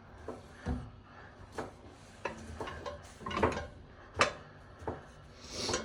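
Cookware being handled on a stove: about seven light knocks and clinks of a pan and utensils, spaced irregularly.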